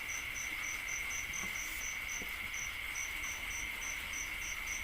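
Insects chirping: a steady high trill with a higher, pulsing chirp above it repeating about four times a second.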